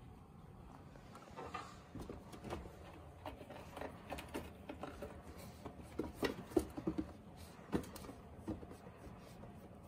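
Scattered light clicks and rustles of cats moving about a wire pet cage and bedding as they are stroked by hand, starting about a second in and busiest a little past the middle.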